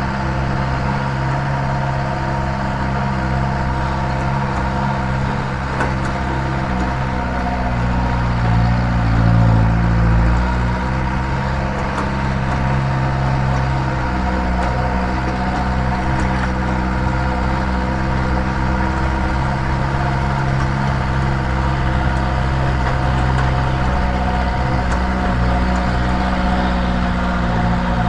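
The engine of a TF Rodeo 4x4 ute running steadily, swelling briefly about nine seconds in.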